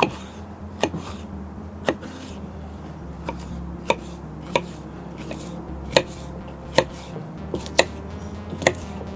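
Knife chopping food on a cutting board: a dozen or so sharp, irregular strokes, roughly one a second, over a steady low hum.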